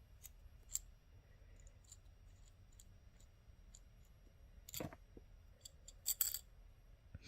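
Faint small clicks and scrapes of jewelry-making hand tools working at a shell pearl bead to clear something stuck in its hole. There are scattered light ticks, a louder scrape about five seconds in, and a quick cluster of clicks about a second later.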